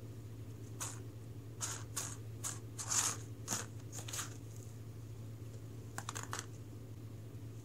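Cat batting clear plastic iced-tea cap rings around a cardboard box: a string of light clicks and scratches from paws and plastic on cardboard, several in quick succession in the first half and a short flurry near the end, over a steady low hum.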